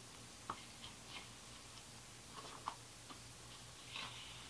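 Paper being handled: a few light, scattered clicks and taps as large loose art-print sheets and a magazine are moved about, with a short rustle of paper near the end, over a faint steady low hum.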